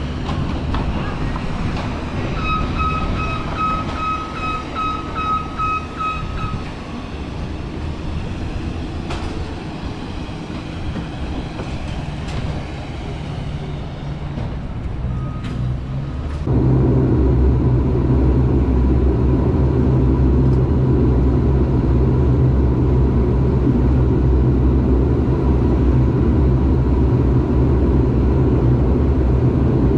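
Steady rumble of a moving vehicle, with a run of short electronic beeps lasting about four seconds a few seconds in. About sixteen seconds in, the sound jumps suddenly to a louder, deeper, steady drone.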